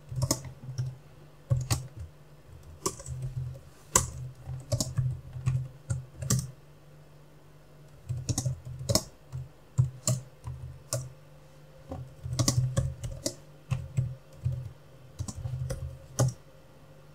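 Typing on a computer keyboard: short runs of keystrokes with brief pauses between them.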